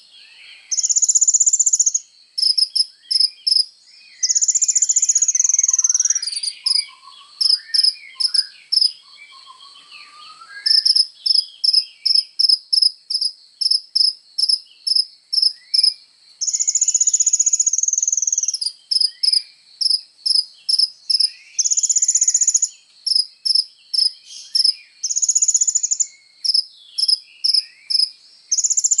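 Sunbird (kolibri ninja) singing loud, high-pitched song. Rapid runs of sharp chips alternate with long buzzing trills of about a second each, over softer varied twittering. A faint steady high whine runs underneath.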